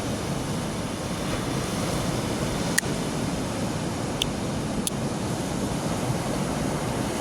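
Steady rushing of surf and wind on the microphone, with a few faint light clicks about three, four and five seconds in.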